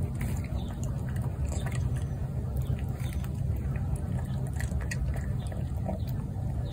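A cat crunching dry kibble from a bowl: irregular crisp crunches over a steady low rumble.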